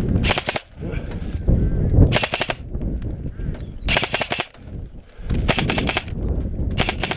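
M4-style airsoft electric rifle firing on full auto in about five short bursts of rapid clicking shots, each roughly half a second long and about a second and a half apart.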